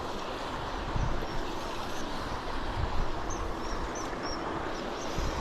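Steady rush of river water, with low rumbling bumps of wind on the microphone. Around the middle come a few short, high bird chirps.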